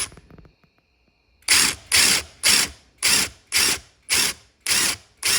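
Impact driver with an impact drill bit run in short, even bursts, about two a second, driving clockwise to back out a broken reverse-thread bolt stuck in a miter saw blade shaft. A single click comes at the start, then a pause of about a second and a half before the bursts begin.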